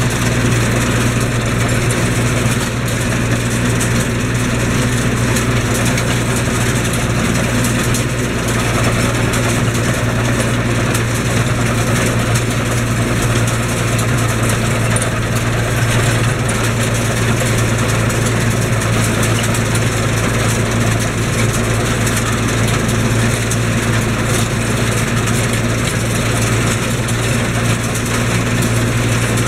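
Tractor engine running steadily under load while its haybine mower-conditioner cuts hay, the engine hum mixed with the constant noise of the haybine's reel, cutter and rolls.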